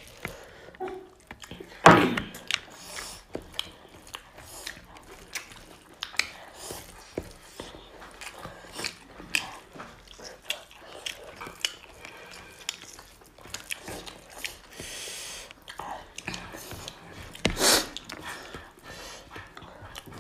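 Close-up eating sounds from two people eating chicken curry and rice by hand: wet chewing and lip smacking, with many small clicks. Two louder sudden sounds, one about two seconds in and one near the end.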